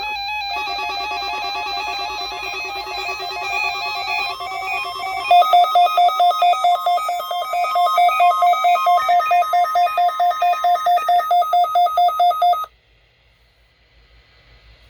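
Electronic beeping tones at several pitches layered together, pulsing about three times a second from about five seconds in, then cutting off suddenly near the end, leaving only faint hiss.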